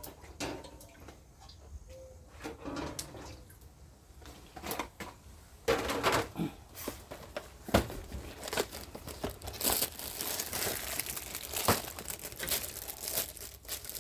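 Plastic bag of dried prawn chips crinkling as it is handled and opened. It starts with scattered rustles and becomes loud, dense crinkling from about six seconds in.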